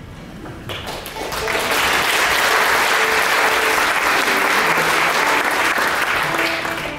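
Audience applauding, building up about a second in and dying away near the end, with a few faint instrument notes under it.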